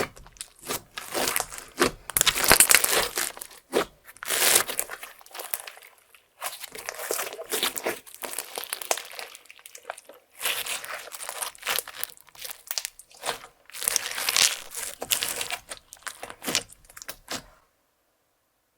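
Clear slime loaded with crushed makeup and glitter being squished and stretched by hand. It makes bursts of crackling, popping squelches and stops shortly before the end.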